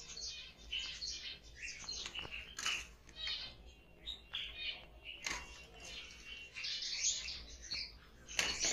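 A colony of caged Java sparrows chirping, with many short high calls overlapping in quick succession.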